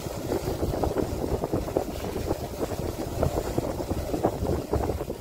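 Motorcycle ride on a rough, wet road: a steady low rumble with wind buffeting the microphone in many short, irregular thumps.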